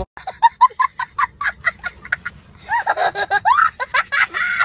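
A person laughing in a quick run of short bursts, about five a second, for about two seconds, then a voice carrying on in longer rising and falling sounds.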